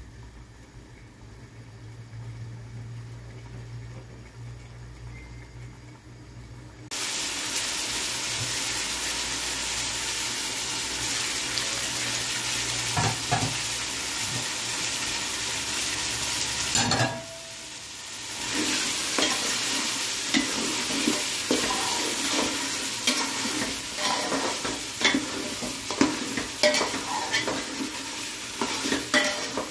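Mutton curry sizzling in an aluminium pot, then stirred with a metal spatula that scrapes and knocks against the pot's sides. The first several seconds are quieter with a low hum; the sizzle comes in suddenly and loud, dips briefly past the middle, then returns with frequent scraping clicks from the stirring.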